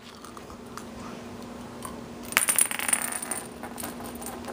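Small plastic cat-toy ball rattling and jingling as it moves across a hardwood floor, with a quick run of tinkling clicks about two and a half seconds in.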